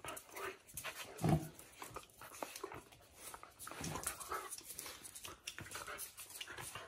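Two dogs play-fighting, with short dog vocal sounds about a second in and again near four seconds, over many small clicks and scuffles from the tussle on a concrete floor.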